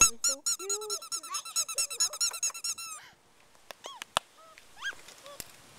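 Yellow Labrador puppies, about four and a half weeks old, squeaking in a rapid run of short high yips, about five or six a second, for some three seconds. A few faint whines and soft knocks follow.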